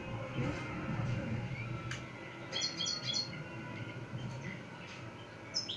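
A caged European goldfinch singing: a quick run of repeated high twittering notes about two and a half seconds in, then another burst of song starting near the end.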